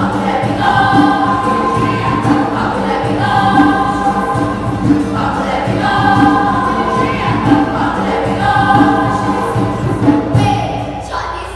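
Children's folk choir singing together, in repeated phrases about two and a half seconds long.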